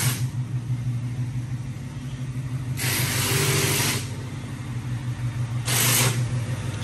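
Ford pickup's engine idling with a steady low hum, with two short bursts of hiss, the first about three seconds in and a briefer one near the end.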